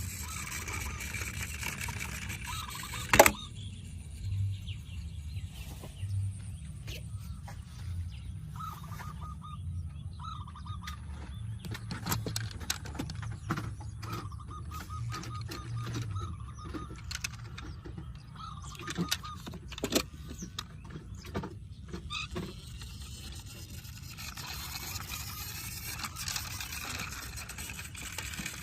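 Diecast toy vehicles being handled, with one sharp loud click about three seconds in and many small scattered clicks, plus a thin whine that comes and goes in several short stretches through the middle.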